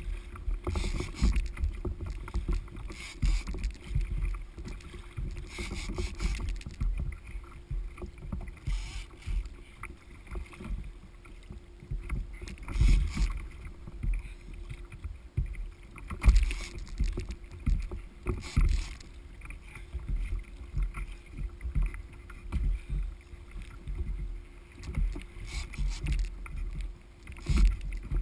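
Wind buffeting the microphone in uneven gusts, with choppy sea water splashing against a kayak's hull.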